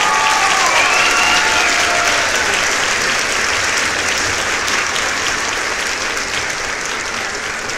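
Crowd applause: a dense, even clatter of many hands clapping, slowly fading.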